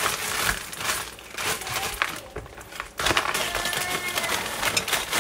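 Clear plastic bag crinkling as it is handled and shaken over a plastic tub, quieter for a second or two in the middle.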